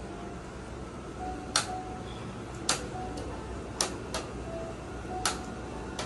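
About five sharp, separate clicks or taps, roughly a second apart, over a steady low hum.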